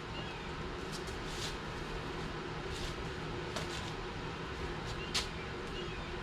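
A few light clicks and taps, as of a pressure washer wand and its tip being handled, over a steady low hum.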